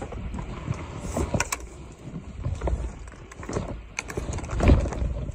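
Hiker scrambling over boulders with a hand-held phone: irregular scuffs, clicks and knocks of footsteps and gear on rock, over low rumbling thumps of the phone being handled. The loudest thump comes near the end.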